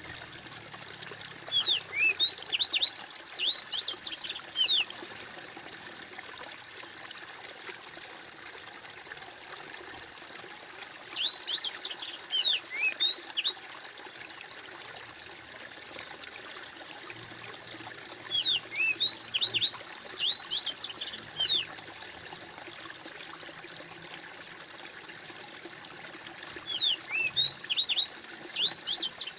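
Water trickling and gurgling steadily while a songbird sings short bursts of quick, sweeping chirps, four times, about every eight seconds.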